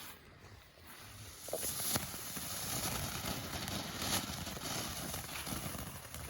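Small consumer firework fountain lit and spraying: a steady rushing noise starts about a second and a half in and keeps going.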